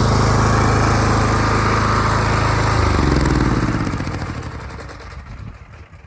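A small gasoline engine, the pressure washer's, runs steadily, then drops in pitch about three seconds in and winds down to a stop.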